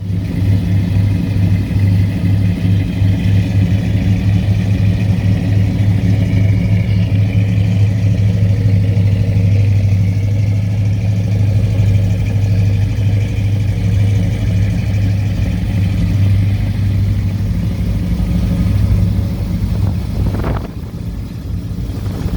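Loud, steady low engine drone, like a motor vehicle running, with a brief rising sound near the end.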